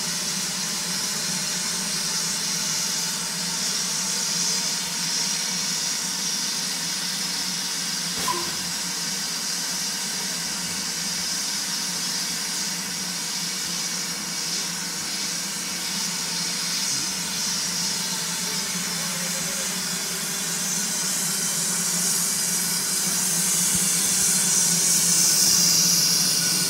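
Steady hiss of escaping steam from a standing LMS Ivatt Class 2MT 2-6-0 steam locomotive, growing louder over the last few seconds.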